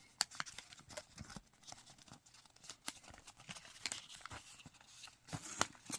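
A square of origami paper rustling and crinkling faintly as it is folded and creased by hand, in a string of small, crisp ticks and crackles.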